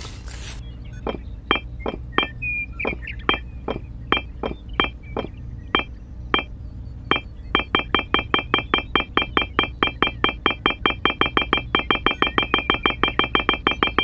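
A short pitched electronic blip, used as a sound effect, repeats over a steady low hum: irregular at first, then a fast even run of about five a second from about halfway. Each blip marks a mini brick popping into place in sped-up building. A brief wet scraping of mortar is heard at the very start.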